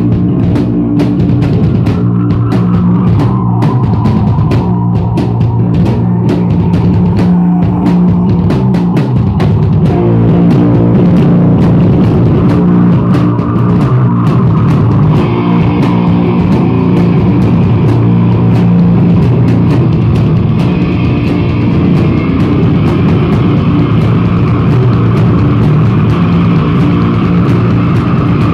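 Rock band playing loud live music: a drum kit beating steadily under electric guitars and bass, with a brighter layer joining about halfway through.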